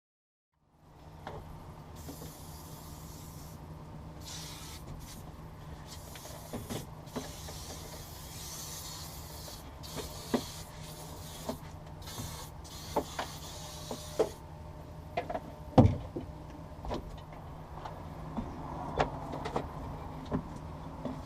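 Scattered light knocks and clicks of hands-on work over a steady low hum. A hiss comes and goes through roughly the first fourteen seconds, and the loudest knock falls about sixteen seconds in.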